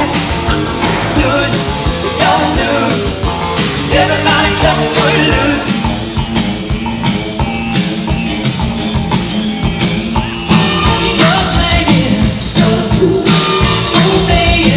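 Recorded 1980s rock song with singing and guitar over a steady beat, getting a little louder about ten seconds in.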